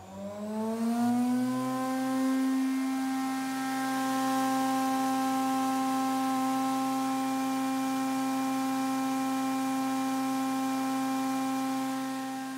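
Cutterhead spindle motors of a Weinig Unimat 1000 four-sided moulder spinning up: a rising whine that levels off about two seconds in, then runs on as a steady humming whine at full speed.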